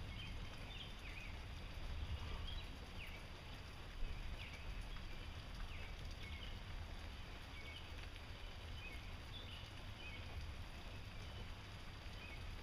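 Night storm ambience: a steady low rumble under an even hiss, with short high chirps from small animals recurring about once a second and a brief thump about four seconds in.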